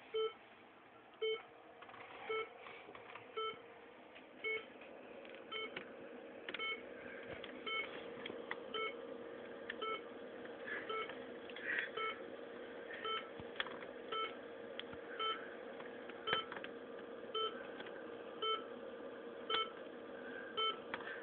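Short electronic beep repeating steadily about once a second, like a hospital monitor or ventilator alarm. A steady background noise grows louder beneath it a few seconds in.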